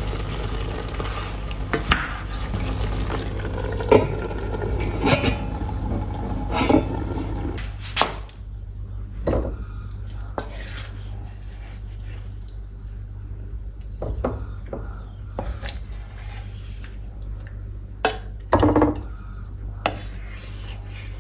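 Kitchen dishes and utensils clattering: a dozen or so separate knocks and clinks, busier in the first half, over a steady low hum.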